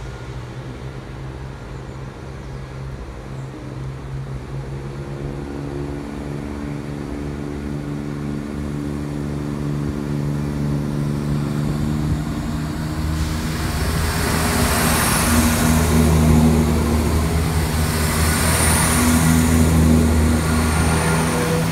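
Class 168 Clubman diesel multiple unit drawing in along the platform: its underfloor diesel engines drone steadily and grow louder as it approaches. About two-thirds of the way in, wheel and rail rumble joins the engine drone as the coaches run close past.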